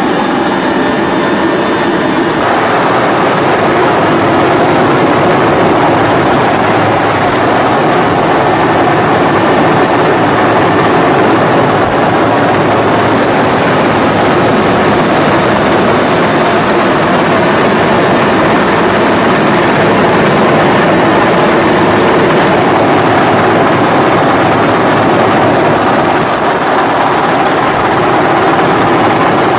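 Helicopter engine and rotor noise, loud and steady, with no break. There is a slight change in the sound about two seconds in.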